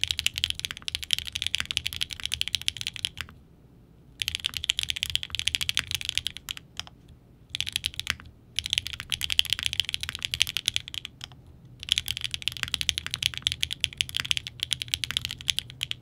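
Fast typing on a Frog Mini keyboard fitted with Venom MX and Rapter MX Extreme: a dense stream of keystroke clacks, broken by three short pauses.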